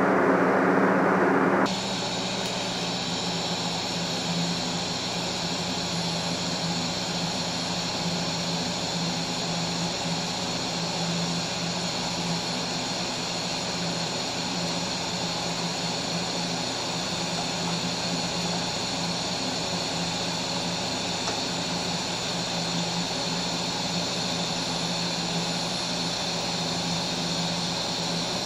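A TIG arc from a Tweco Fabricator 141i inverter welder burning steadily: an even hiss over a low hum that starts abruptly about two seconds in and holds without a break.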